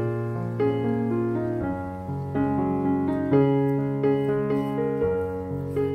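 Background piano music: a gentle melody of held notes changing every half second or so.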